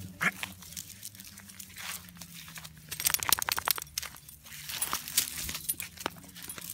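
Crackling, crunching rustle in dry leaf litter, coming in bursts of quick clicks about three seconds in and again about five seconds in, with light metallic clinking among them.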